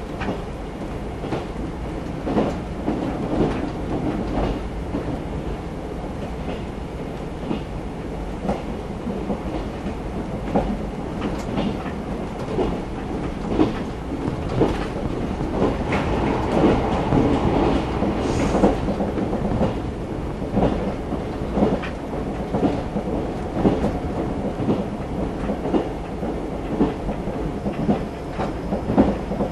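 A JR 381 series electric train running at speed, heard from inside the passenger car: a steady rumble with the clickety-clack of the wheels over rail joints, clicking irregularly about once a second.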